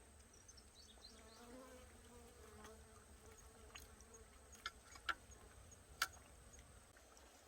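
Faint buzz of a flying insect passing close, its pitch wavering for about two seconds. Then come four sharp clicks, the loudest a little after the middle.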